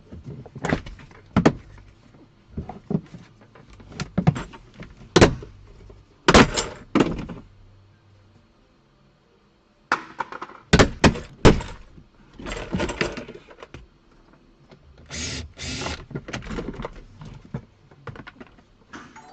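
Irregular knocks, clunks and clatters of parts being pried and pulled off a mold-damaged Tesla, with a short pause in the middle and a couple of longer scraping sounds later.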